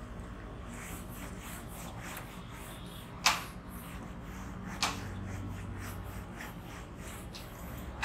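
Whiteboard eraser rubbing across the board in uneven wiping strokes over a low steady hum, with two sharp knocks, the louder about three seconds in and another about five seconds in.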